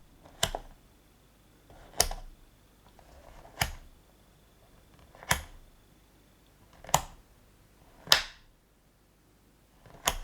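Fluke 177 multimeter's rotary selector switch clicking from one position to the next, seven sharp detent clicks about one and a half seconds apart.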